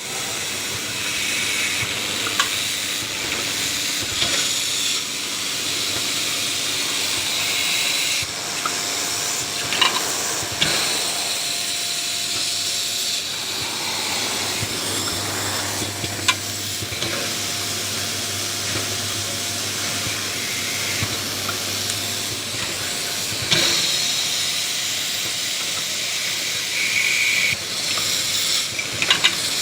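Automatic drilling and tapping machine with auto-feed running: a steady high hiss, with a sharp click or knock every few seconds, and a low motor hum that comes in about halfway through and drops out again some seconds later.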